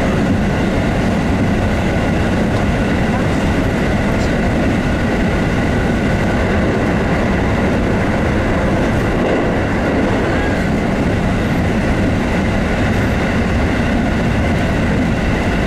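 JR West 221 series electric train running, heard from inside behind the cab: a steady rumble of wheels on rail with a few steady high hums on top.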